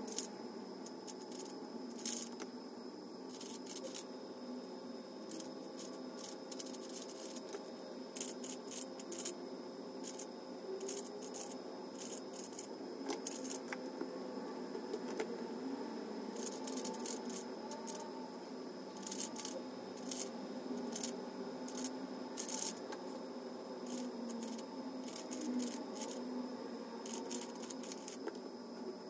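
3x3 speed cube being turned quickly by hand. Its plastic layers make irregular runs of sharp clicks and clacks over a steady background hum.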